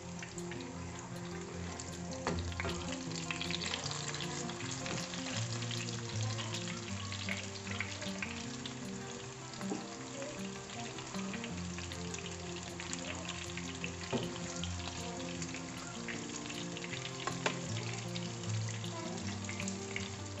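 Breaded chicken breasts shallow-frying in hot oil: a steady crackling sizzle with scattered small pops, over quiet background music.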